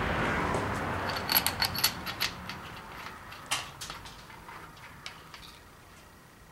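Oiled main bearing cap bolts on a Chevy 350 small-block being handled and started by hand in the caps: a rustle of handling, then a quick run of sharp metallic clinks about a second in, one more clink a little later, and lighter ticks that fade out.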